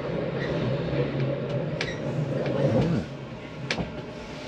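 Narrow-gauge railway carriage rolling slowly, heard from inside: a steady low rumble and hum with scattered clicks and knocks, which drops away about three seconds in.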